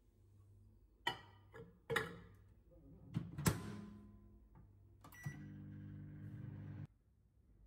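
A glass bowl clinks twice as it is set into a Toshiba microwave oven, and the door shuts with a sharp clunk. After a short beep, the microwave starts about five seconds in, running on high with a steady low hum that cuts off suddenly near the end.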